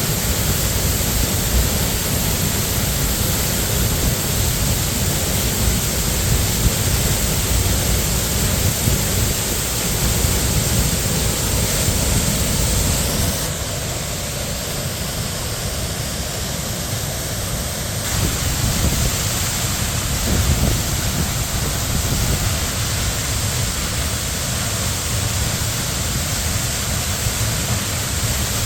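Steady rush of falling water from Minnehaha Falls, the waterfall on Minnehaha Creek. The upper hiss thins for a few seconds about halfway through, then returns.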